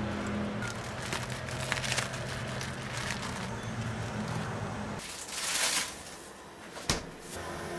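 Light rustling and a few small clicks as a cloth pouch of dried broth ingredients is handled and dropped into a pot, over a steady low kitchen hum. About five seconds in comes a short loud hiss, then one sharp click near the end.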